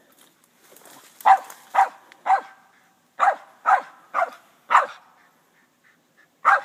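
Squirrel dog barking treed at a raccoon up the tree: seven short barks, a run of three about a second in and a run of four near the middle. This is a treeing bark, the sign that the dog has the raccoon treed.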